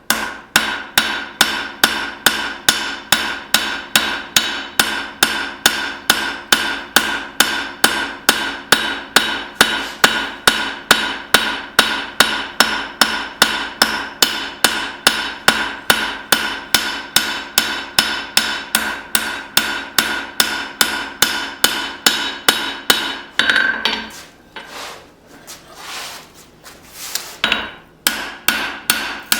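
Hand hammer striking leaf-spring steel on an anvil during forging: a steady run of blows, about three a second, with a metallic ring between them. The hammering breaks off about 24 seconds in for a few scattered knocks, then picks up again near the end.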